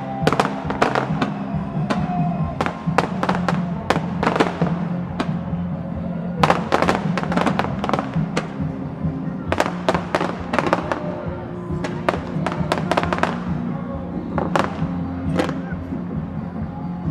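Fireworks going off in quick clusters of bangs and crackles, with music playing underneath.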